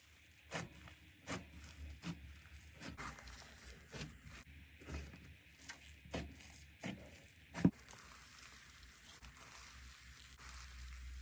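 Slime being squeezed and pressed by hand, giving a run of sharp clicking pops about one every three-quarters of a second, the loudest at the end of the run. After that only a faint soft hiss remains.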